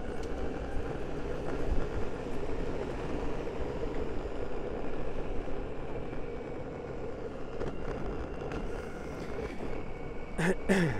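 Electric skateboard rolling along at speed: a steady running rumble of the wheels on the road, with a faint, even whine above it. Near the end come two short, loud sounds, the lower one falling in pitch.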